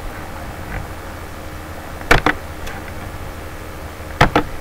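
Sharp clicks in pairs, one pair about two seconds in and another near the end, over a steady low hum.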